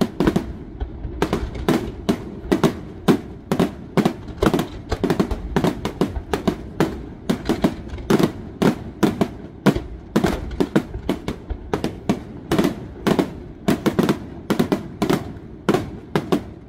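Aerial firework shells bursting in a dense barrage, two or three sharp bangs a second, stopping abruptly near the end.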